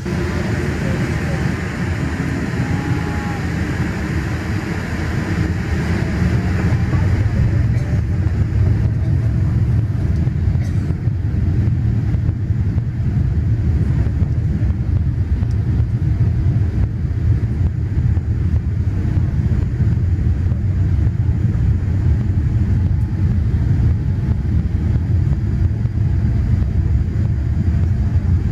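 Boeing 787-8 Dreamliner's engines heard from inside the cabin, rising suddenly at the start and building over about eight seconds to a steady low rumble: the power-up for the takeoff roll.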